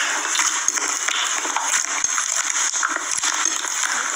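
Dried floam, slime packed with foam beads, being pressed and poked by fingers: a dense crackling full of small clicks and pops.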